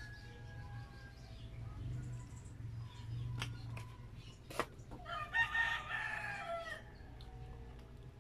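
A rooster crows once, starting about five seconds in and lasting under two seconds, over a steady low hum. A couple of sharp clicks come just before it.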